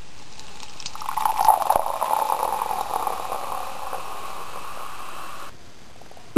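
Coffee pouring and gurgling into a cup in a steady stream, stopping abruptly about five and a half seconds in.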